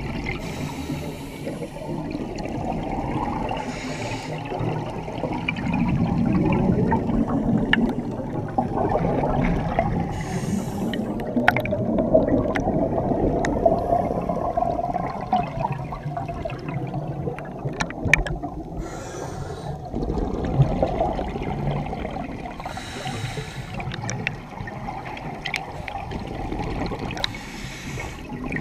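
Scuba breathing heard underwater: a continuous bubbling, gurgling rumble of exhaled air from a regulator. A brief hiss comes every few seconds, as from the regulator on each breath in, and there are a few scattered clicks.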